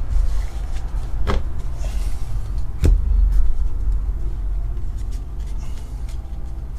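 A foil trading card pack handled and opened by hand, with light crinkling and two sharp knocks about one and three seconds in, over a steady low rumble.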